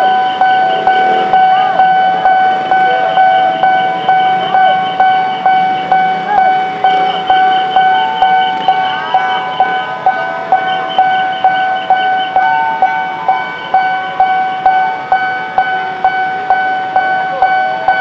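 Railroad level-crossing warning bell ringing steadily, about two strokes a second, over street traffic noise.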